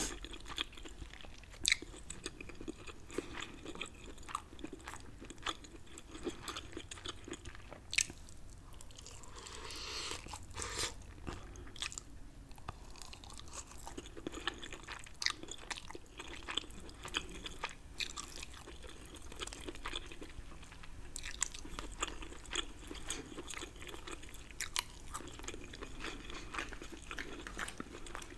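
Close-miked eating of crab meat in Alfredo sauce: wet chewing and lip-smacking with many short, sharp clicks.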